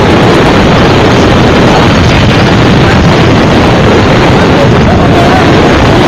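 A loud, steady roar of noise, heavy in the bass and unchanging in level.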